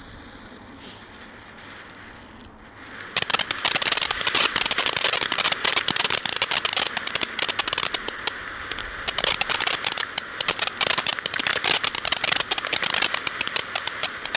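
Ballroom Balls F1 ground fountain firework: the lit fuse hisses, then about three seconds in the fountain erupts and sprays sparks with a dense, rapid crackling. The crackling cuts off at the very end.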